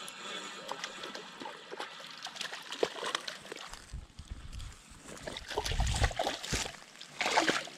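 A hooked crappie splashing and thrashing at the water's surface among floating leaves as it is pulled to the bank, with louder splashes about six seconds in and again near the end.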